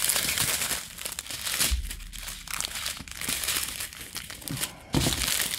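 Clear plastic bags of diamond painting drills crinkling as a strip of them is handled.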